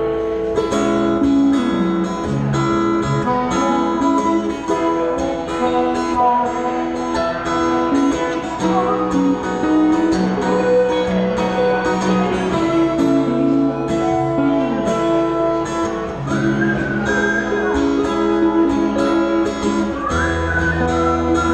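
Live band playing an instrumental passage led by guitar, with sliding high notes a few times and a deep bass note coming in near the end.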